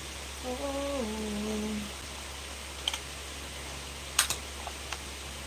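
A woman humming a few notes that step down in pitch, followed by a few separate light clicks, the sharpest about four seconds in.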